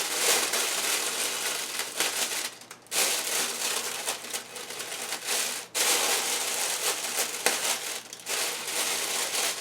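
Plastic oven bag crinkling as it is handled and holes are poked in its top to vent it, in three long stretches with short pauses between.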